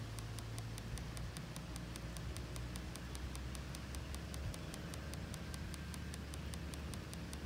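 Wind rumbling on the microphone, with a steady, even ticking at about five ticks a second throughout.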